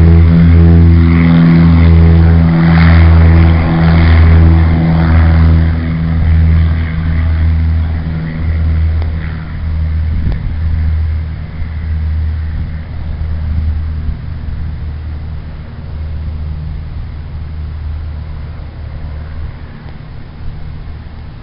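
Twin-engine piston airplane at full takeoff power, accelerating down the runway and climbing away. Its engine drone pulses as the two engines beat against each other and grows steadily fainter.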